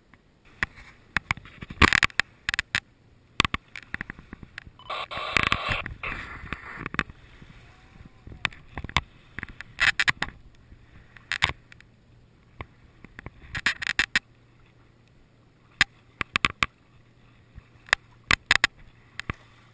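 Irregular sharp knocks and clatter aboard a sailboat under way, with a longer rush of noise about five seconds in.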